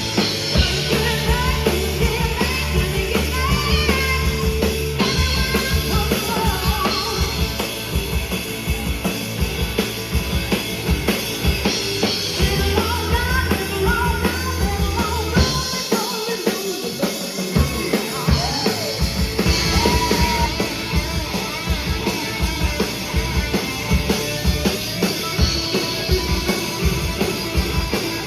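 A band playing: a drum kit keeps a steady beat under a bass line and a sung melody. The low bass drops out for a couple of seconds about halfway through, then comes back.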